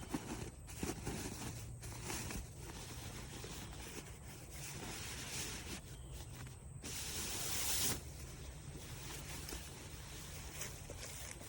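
Rustling and swishing of a puffy synthetic camping quilt being handled, with a louder swish about seven seconds in.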